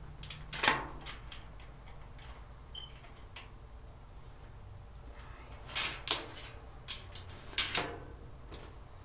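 Parts of a storage cart being handled and fitted together by hand: intermittent clicks and short clattering bursts, loudest about a second in, near six seconds and near eight seconds.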